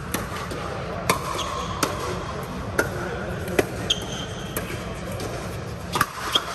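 Pickleball rally: sharp pops of paddles striking the plastic ball and the ball bouncing on the court, about eight hits at an uneven pace of roughly one a second, over a steady low hum.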